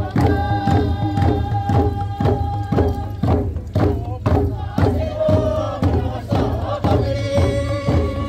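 Traditional kundu hourglass hand drums beating a steady rhythm, about four beats a second, under a group of voices chanting in long held notes.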